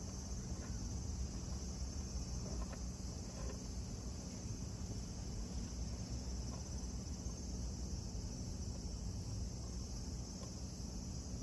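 Steady high-pitched chorus of insects chirping outdoors in summer, over a low steady rumble.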